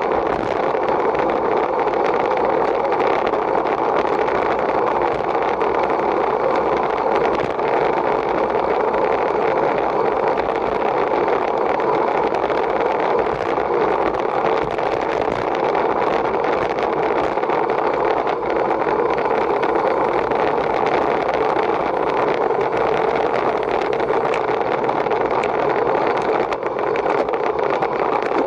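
Steady rushing noise of travel at speed: wind and road noise on the microphone, unbroken and even.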